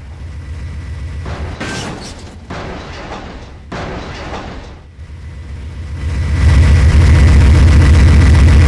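Train running close by: a heavy low rumble with surges of noise that swells to very loud about six seconds in.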